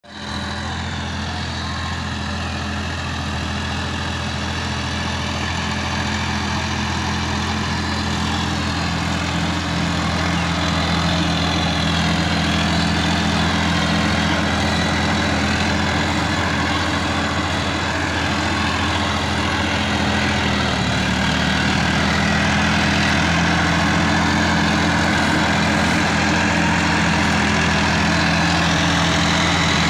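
Sonalika DI-50 RX tractor's diesel engine running steadily under load as it pulls a working rotavator through dry paddy stubble. It grows a little louder over the first ten seconds or so, then holds steady.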